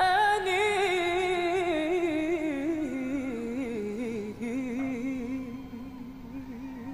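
Male singer's voice holding one long note with wide vibrato, sliding down step by step in pitch over about four seconds and then holding steady to the end.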